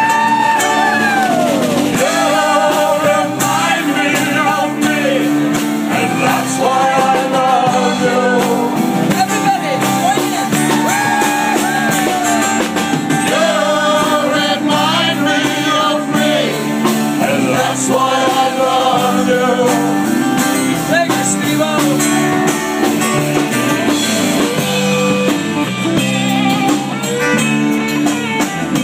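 Live country band playing: acoustic guitar and lap steel guitar over a rhythm section, with a lead line that slides and bends between notes.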